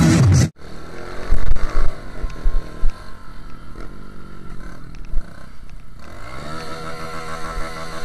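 Honda motorcycle engine heard from a camera mounted on the bike while riding, its pitch rising and falling with the throttle, with wind buffeting the microphone, loudest about a second and a half in. Near the end the engine revs up steadily.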